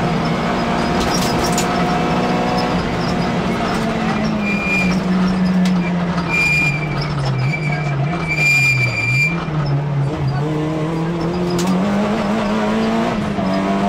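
Rally car engine heard from inside the cabin at stage pace, the revs sagging about halfway through and climbing again. Several short high-pitched tyre squeals come through the corners.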